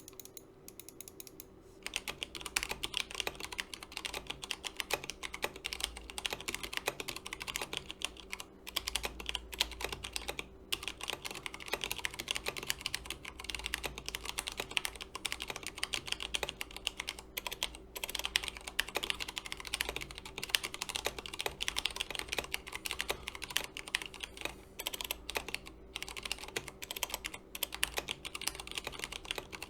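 Typing on an Akko 3084 Silent 75% mechanical keyboard with Cherry MX Brown tactile switches: a fast, continuous patter of keystrokes that starts about two seconds in.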